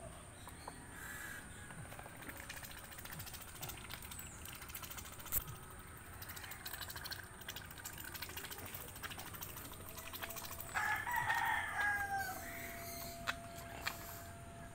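A rooster crowing once, a long held call about eleven seconds in, over a faint farmyard background with a few light clicks.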